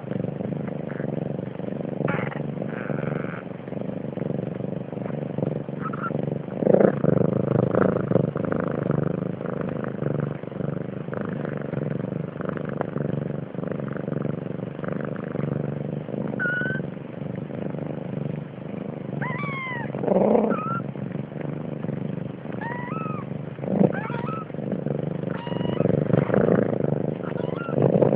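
Cat purring steadily, with several short meows in the second half.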